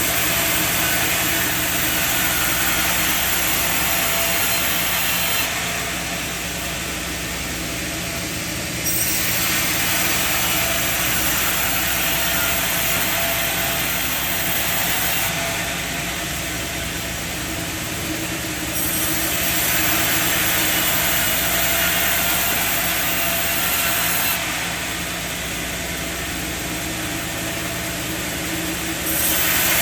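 Sawmill saw running with a steady machine hum underneath, cutting through wood in regular passes: a loud stretch of sawing for about five or six seconds, then a quieter spell of three or four seconds, repeating about three times.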